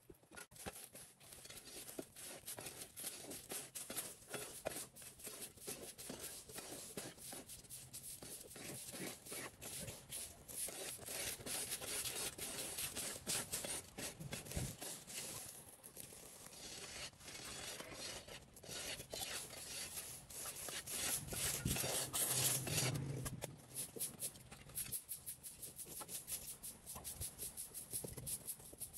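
Steady scraping and rustling, a dense run of small clicks and scratches like hand work on debris, growing louder for a stretch a little past the middle.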